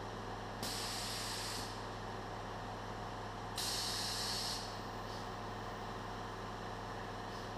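Two short hisses of released gas or compressed air, each about a second long and about three seconds apart, over a steady electrical hum from the welding robot's equipment.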